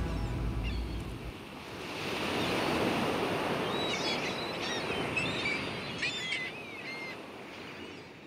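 The last notes of the routine music die away about a second in, then a crowd applauding, with short high-pitched calls over it from about four seconds in, fading near the end.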